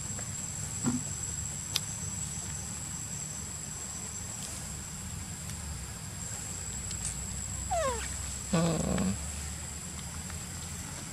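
Macaque vocalizing: a short falling squeal about eight seconds in, followed at once by a lower, louder call, with a small sound and a click earlier. A steady high-pitched tone runs underneath.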